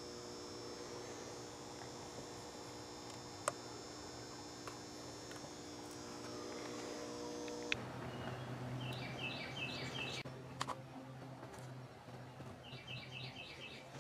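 Faint steady electrical hum that stops abruptly about halfway through. Quiet outdoor background with a low drone follows, and a bird chirps in two quick runs of notes.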